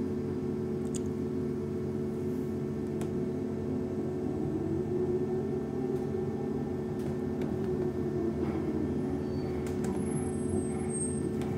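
Interior of a LiAZ-6274 battery-electric bus under way: steady electric drive hum and tyre and road rumble, with a tone that rises and falls as the bus speeds up and eases off in the middle, and a few faint rattles.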